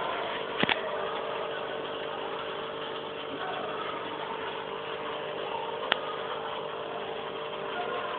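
Aquarium pump running with a steady hum over the hiss of bubbling water. Two sharp clicks cut through it, one about a second in and one near six seconds.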